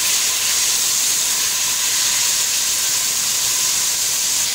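Fried onions and ginger-garlic paste sizzling steadily in hot oil in an aluminium pot, being sautéed and stirred with a wooden spatula.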